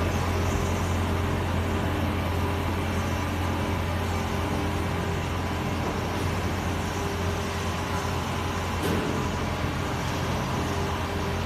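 Steady low hum of workshop machinery, with a fainter higher tone that comes and goes over it.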